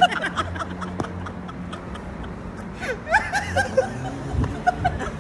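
Men laughing in short rhythmic bursts, the strongest run about three seconds in.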